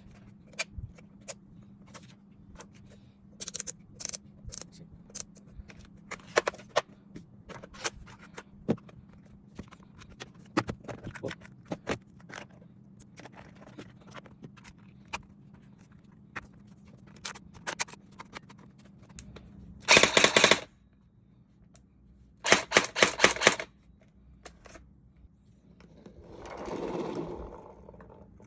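Scattered clicks and knocks from handling a CYMA SCAR-L gel blaster, then two short full-auto bursts from its electric metal-gear gearbox, the first a quick dense rattle about two-thirds of the way in and the second a couple of seconds later. Near the end comes a rushing sound that swells and fades.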